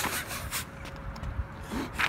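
Rustling and scraping of a folded sheet of paper being handled and opened, with a short laugh near the end.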